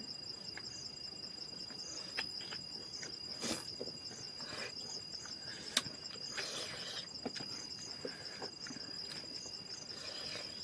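Insects trilling steadily in a high, continuous tone with a fast, even pulsing above it, with a few faint knocks and clicks.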